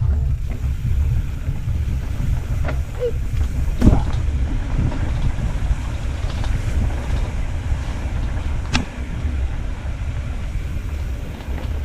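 Low, steady wind rumble on a helmet-mounted action camera's microphone, with a few sharp knocks, the loudest about four seconds in.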